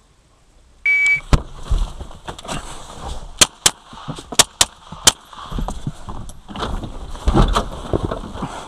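A shot timer gives its short start beep about a second in. A string of pistol shots follows from a Springfield XD(M) fired from inside a car, several sharp cracks spread over the next few seconds.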